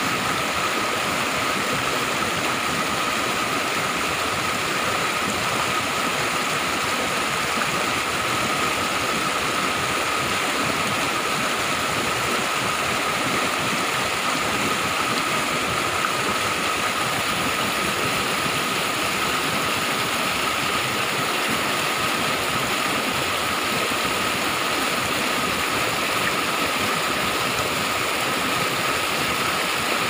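Small forest waterfall and stream cascading over rocks: a steady rush of water, with a thin, steady high-pitched tone running through it.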